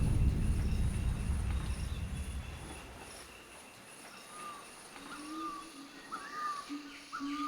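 A deep rumble from the music's final drum hit fading away over the first three seconds, leaving a faint outdoor ambience with a steady thin high whine. About four and a half seconds in, birds start calling with short wavering notes and lower held notes, repeating more often toward the end.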